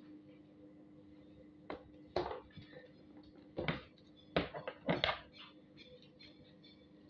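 Paper being handled and folded: several short rustles and knocks, the loudest a little past the middle, over a steady low hum.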